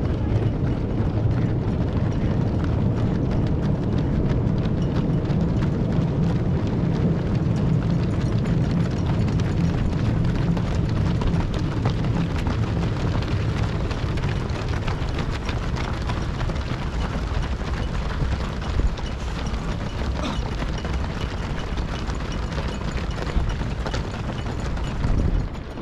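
Many marathon runners' footsteps slapping on the road as the field passes, a dense run of short ticks over a steady low rumble.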